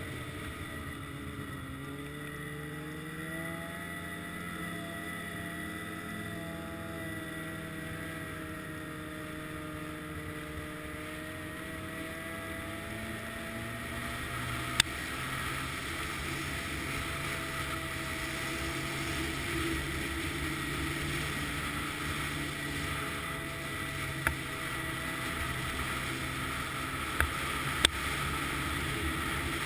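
Snowmobile engine running under way, heard close from the machine itself, its pitch gliding up and down with the throttle and growing a little louder about halfway. A few sharp clicks come about halfway and several more near the end.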